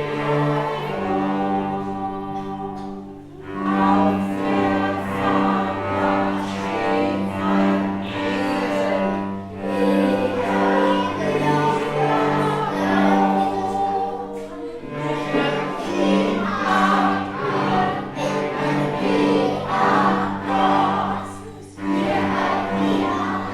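Music: a choir of voices singing over sustained low notes, with short pauses about three seconds in and near the end.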